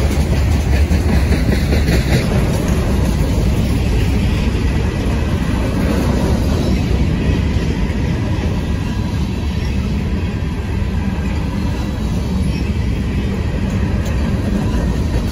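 A Norfolk Southern freight train's loaded log flatcars and hopper cars rolling past close by: a loud, steady rumble of steel wheels on the rails.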